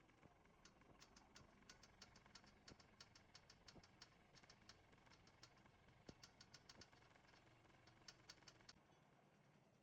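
Faint, irregular light clicking and rattling, quick clusters of small sharp ticks that stop a little before the end.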